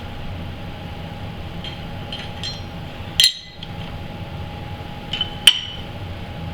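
Light metallic clinks of steel parts or tools being handled, with one sharp clink about three seconds in and another pair near the end, over a steady machine hum.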